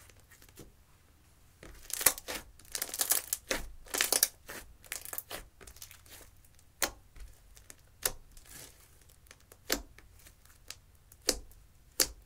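Hands kneading and squeezing thick slime made of clear slime with crushed eyeshadow mixed in. After a quiet first second or so comes a dense run of crackling, squelching pops as it is worked, then single sharp pops every second or two as fingers press into it.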